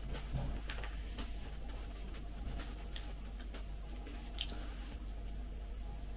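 Quiet eating of soft buckwheat porridge from a spoon: faint scattered clicks and squishy mouth sounds of chewing, with one sharper click a little over four seconds in.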